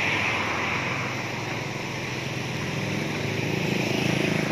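A motor engine running steadily, getting a little louder near the end.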